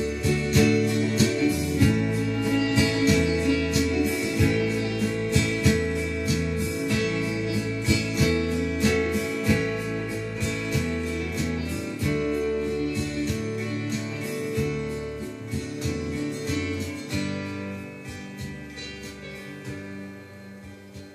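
Instrumental ending of a song: guitar over bass and a steady beat, fading out over the last few seconds.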